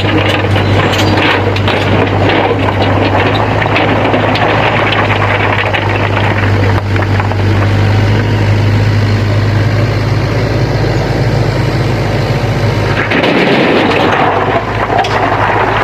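Diesel engine of a Sany SY 75C excavator running steadily with a deep hum. The hum drops away about thirteen seconds in, leaving a rougher noise.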